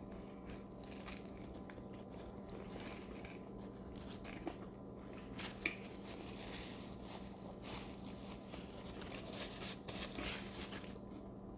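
Faint chewing and mouth sounds of someone eating fast food, with a few soft clicks and crinkles, over a steady low hum.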